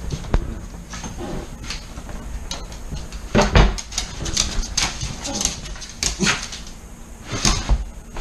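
A small dog moving about excitedly on a hardwood floor: a scattered run of sharp clicks and taps from its claws, with a few louder knocks.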